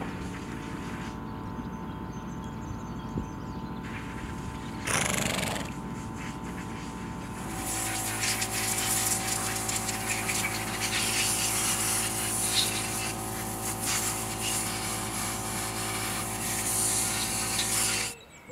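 A machine's motor running steadily with a low hum. About five seconds in there is a short whoosh. From about a third of the way in it is louder and hissier, then it cuts off suddenly just before the end.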